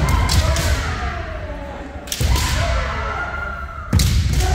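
Kendo practice: three sharp strikes about two seconds apart, bamboo shinai hitting armour together with stamping feet, with drawn-out kiai shouts between them.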